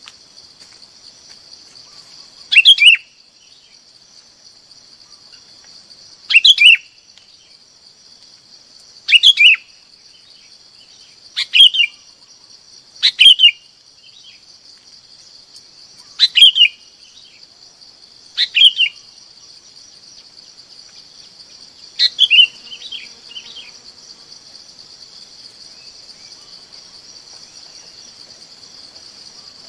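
Bulbul (chim bông lau) calling: eight short, quick phrases a few seconds apart, each falling in pitch. A steady high-pitched drone runs underneath.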